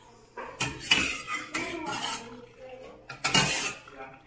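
Stainless steel slotted spoon clinking and scraping against a steel pot and plate while boiled vegetables are scooped out, a series of sharp metallic clanks, the loudest about a second in and again past three seconds.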